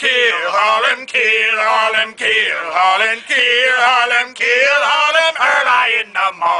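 Two men singing a sea shanty in gruff pirate voices. The song comes in phrases of about a second each, with a wavering pitch.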